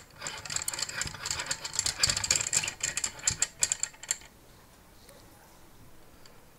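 Metal-and-plastic microscope stand holder being handled and screwed together, a dense run of small clicks and rattles for about four seconds, then it stops.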